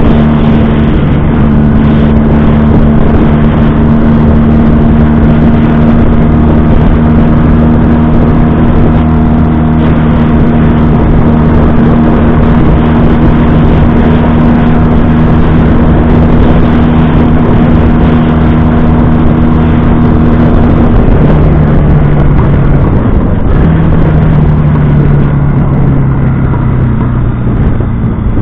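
1970 Honda CB175's air-cooled parallel-twin engine running at a steady cruising speed, heard from the rider's seat over steady wind and road noise. About two-thirds of the way through the engine note drops, picks up briefly, then falls gradually as the bike slows.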